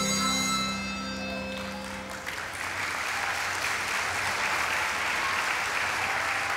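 Music ends on held final notes that fade out, and about two seconds in an audience breaks into applause that carries on.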